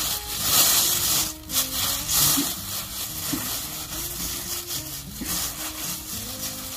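Rough scraping and rubbing noise that swells and fades several times, over soft background music with held notes.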